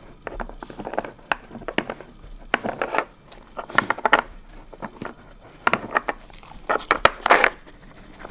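A Samoyed nosing at a plastic Nina Ottosson Dog Hide N' Slide puzzle toy while hunting for treats: irregular clicks and knocks of the plastic sliders and pegs, mixed with short sniffs.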